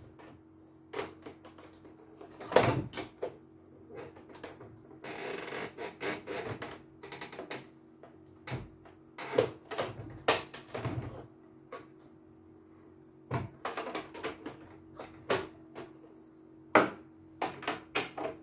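Irregular clicks, taps and knocks of plastic casing and a screwdriver as a CNY portable embroidery machine is handled and taken apart, over a faint steady hum.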